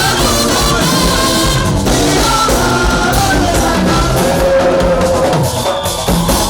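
Loud church praise music: singing voices over a band with a drum kit, with a steady beat.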